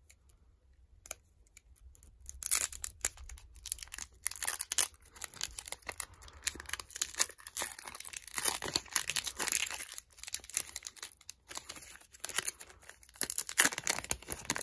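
Foil Pokémon booster pack wrapper crinkling and being torn open by hand: a dense, irregular run of crackles that starts about two seconds in.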